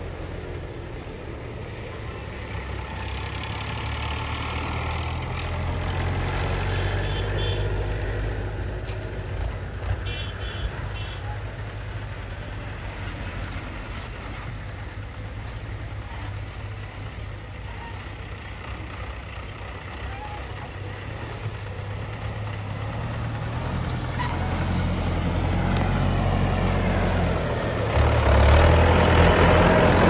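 Mahindra 475 DI tractor's diesel engine running as it hauls a trailer loaded with soil, growing louder toward the end as it comes close, with a step up in loudness about two seconds before the end.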